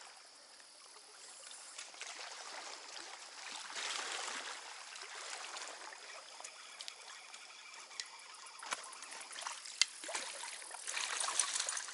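Trout stream water running and trickling, with a few sharp clicks near the end.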